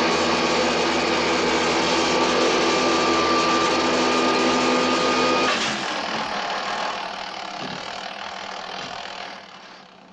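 A loud electrical machine buzzing and humming with several steady tones, one of them drifting slightly upward. It cuts off abruptly about five and a half seconds in, leaving a fainter hum that dies away, and there is a single sharp click near the end.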